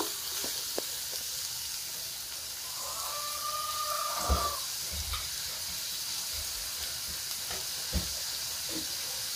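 Onions frying in hot coconut oil in a steel pan, a steady sizzling hiss. About three seconds in a hen gives one long call, the kind a hen makes when about to lay, and there are a couple of soft low knocks.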